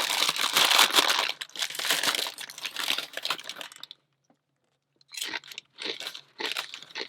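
Crinkling of a potato chip bag being handled and opened, and crunching of chips being eaten, with a brief quiet gap about four seconds in.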